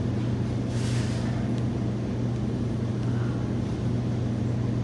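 Steady low machine hum, with a short rustle about a second in.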